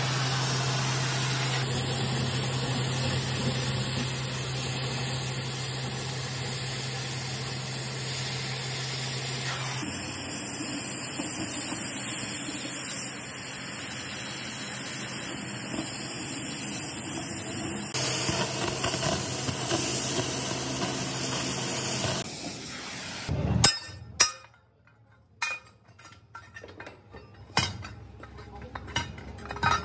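Oxy-fuel cutting torch hissing steadily as it cuts through a steel pipe, with a steady low hum underneath. About three-quarters of the way through the hiss stops, and a few short knocks and clinks follow.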